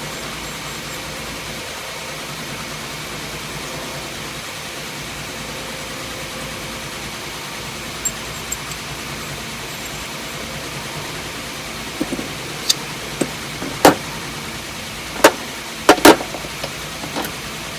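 A steady background hum, then a series of sharp metallic clicks and knocks about two-thirds of the way in, several loud, as steel tool holders and collets are handled and set against each other.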